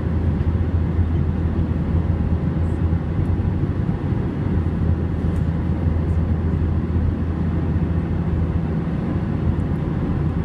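Steady cabin noise of an Airbus A321 in flight, heard inside the cabin by a window over the wing: a constant low engine drone under the rush of airflow.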